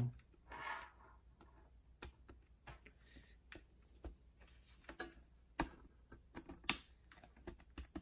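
A plastic fan blade is being pushed and worked into the hub of a small USB mini ceiling fan, giving scattered light plastic clicks and taps. One louder click comes near the end as the blade snaps into place.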